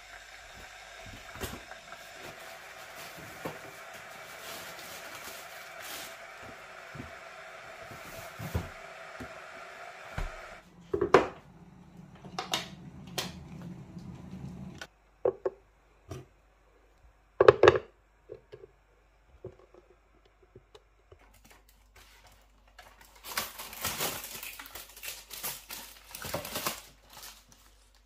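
Kitchen counter sounds: a steady rushing noise for about the first ten seconds, then a few sharp knocks and clunks of things being handled and set down, and crinkling plastic packaging near the end.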